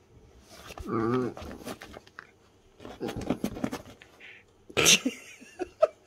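Small dog grumbling and whining in wavering, pitched sounds, with a sharp louder burst about five seconds in, followed by a few short clicks.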